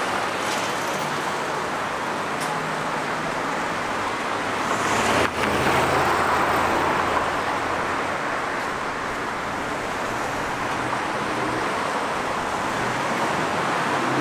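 Steady street traffic: cars running past on a busy road, with engine hum under the tyre noise. A single short click about five seconds in.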